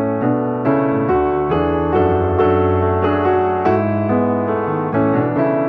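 Background piano music, a new note or chord starting about twice a second.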